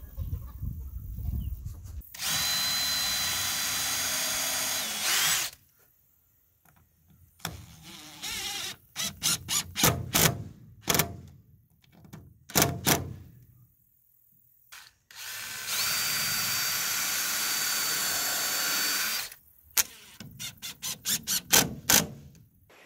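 A DeWalt cordless drill-driver working screws into a wooden board. It runs steadily with a high whine for about three seconds twice. In between and near the end, it gives clusters of short, quick trigger bursts as the screws are run in and set.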